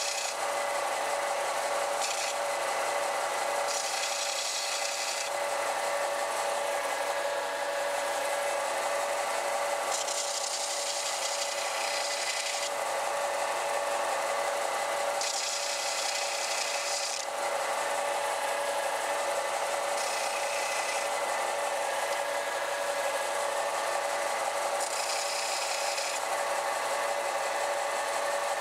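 Vertical belt sander running steadily, with a rasping hiss that comes and goes several times as the cut edges of small fibreglass circuit boards are pressed against the moving belt to smooth them.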